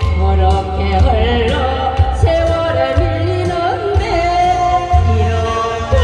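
Live singing through a PA: a vocalist holds long notes with vibrato over an amplified backing track with a steady bass and drum beat.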